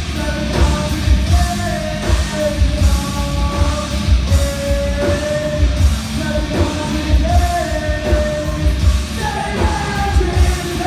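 Live rock band playing loudly, a singer holding long notes over a heavy, steady beat.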